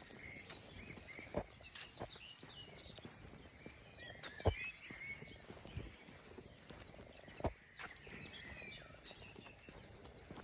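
Small birds chirping and twittering continually, with a few short sharp knocks now and then, the loudest about halfway through.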